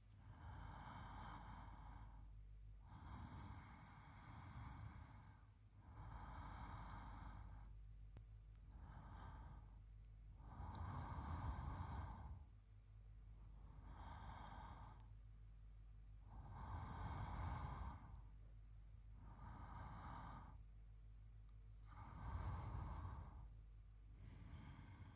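A man's soft, slow sleep breathing close to the microphone, a breath sounding every two to three seconds.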